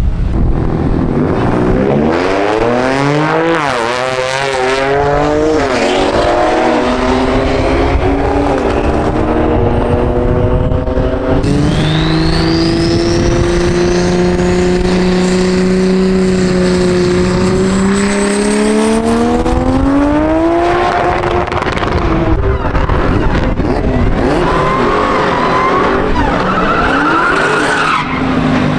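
Drag-strip burnouts by several cars: engines revved hard and held at high revs while the rear tyres spin and squeal. The engine note climbs in quick steps over the first few seconds, holds steady at high revs through the middle, then rises once more and drops away about twenty seconds in.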